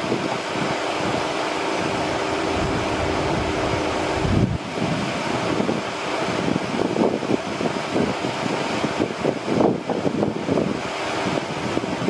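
Wind buffeting the microphone in uneven gusts over a steady low hum, which stops about four seconds in.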